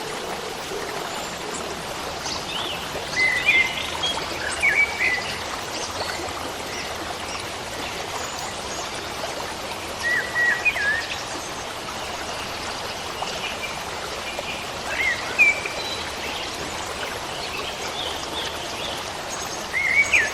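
Steady rush of running water from a stream, with birds chirping in short phrases several times: around three to five seconds in, around ten seconds in, around fifteen seconds in, and again near the end.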